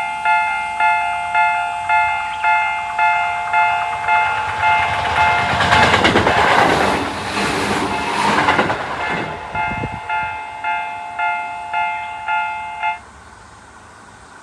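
Japanese railway level crossing's warning bell ringing about twice a second while a Tobu Tojo Line train passes, the rush of the train loudest from about five to nine seconds in. The bell stops suddenly about thirteen seconds in.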